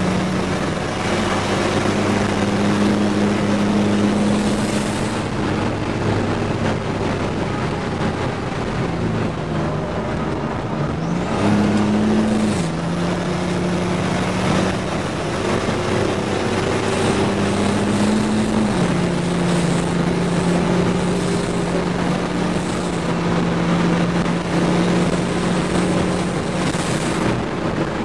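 GMC Syclone's turbocharged 4.3-litre V6 heard from inside the cab at speed on a race track, its note mostly steady with a few brief rises and drops in pitch, over steady road and wind noise.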